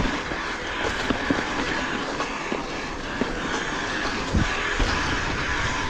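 Mountain bike rolling down a rough trail: a steady rush of tyre and wind noise, with the bike rattling and knocking irregularly over bumps.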